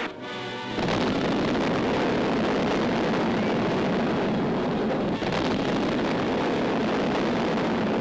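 Newsreel soundtrack of depth-charge explosions: after a brief held musical chord, a steady loud roar of blasts sets in about a second in, mixed with dramatic music.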